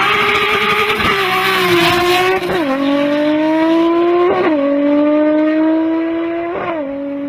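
Performance car engine accelerating hard through the gears: its pitch climbs steadily in each gear and drops sharply at three upshifts, the first about two and a half seconds in. A loud hiss sits over the engine for the first couple of seconds.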